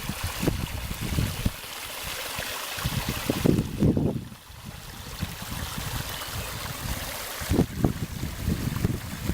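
Wind buffeting an outdoor camera microphone: a steady hiss with irregular low rumbling gusts.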